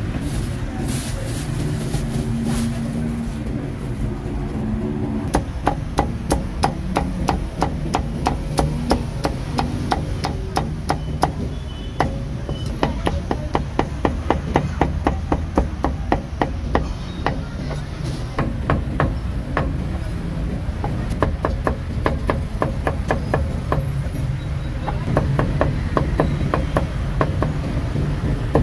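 Meat cleaver chopping roast pork belly on a round wooden chopping block: rapid, even knocks, about four a second, starting a few seconds in and thinning out near the end, over a steady hum of street noise.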